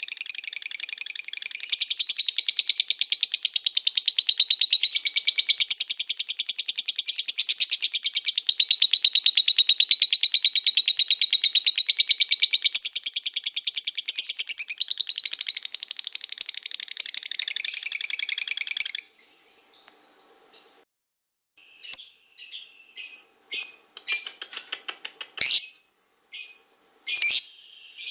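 Songbird song from a bird-song training recording: a fast, continuous chattering trill for about nineteen seconds, then a string of short, separate sharp calls.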